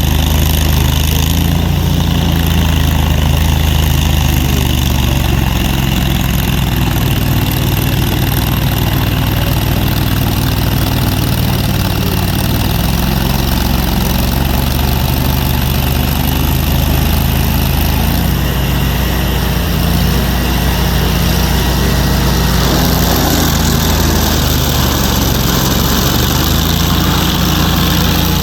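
A large engine running steadily at a low idle-like pitch, its note shifting slightly about twelve seconds in and again near the end.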